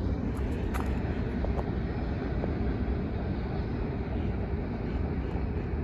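Freight cars of a manifest train rolling past: a steady low rumble, with a few light clicks in the first second or two.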